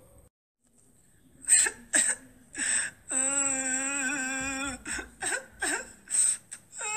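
Cartoon character's crying voice: a few short sobs, then one long wailing cry held for nearly two seconds, then more short sobs, with another wail starting near the end.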